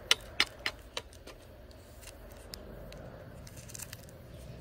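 A quick run of sharp clicks and crackles in the first second or so, then a few fainter ticks.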